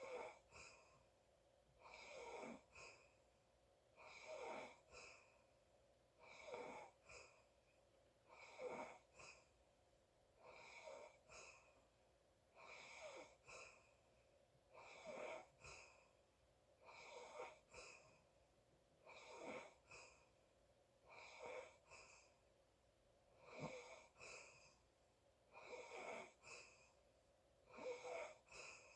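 A sleeping person's faint, wheezy breathing, a breath about every two seconds, each in two quick parts with a thin whistle in it.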